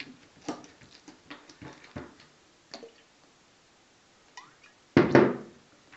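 Hands patting and pressing oiled dough on a tabletop make light wet taps. About five seconds in, sunflower oil glugs out of a tipped bottle onto the dough in a short, loud gush.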